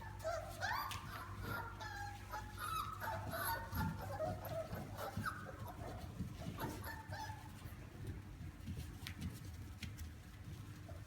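Labrador retriever puppies whimpering and whining, a run of short, high, wavering cries over the first several seconds that dies away, leaving a few light clicks over a steady low hum.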